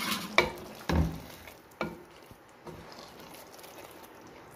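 Wooden spoon stirring thick cooked daal mash in a metal pot: a few sharp knocks of the spoon against the pot in the first three seconds, over a soft sizzle of the simmering daal that fades after about two seconds.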